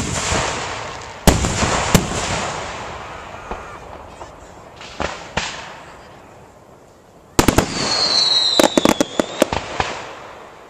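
Aerial fireworks shells bursting: sharp booms at the start and twice more within the first two seconds, each trailing off in a long rumbling echo. After a quieter stretch, a quick volley of bangs comes about two-thirds in, with a short falling whistle and crackling.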